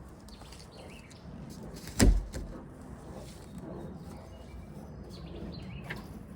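A single heavy thump about two seconds in, with a few lighter clicks and rattles near the end.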